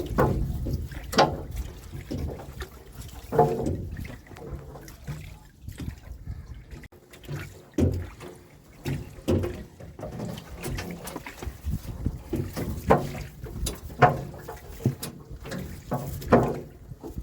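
Water sloshing and splashing in irregular strokes, a dozen or so spaced unevenly, over a low rumble.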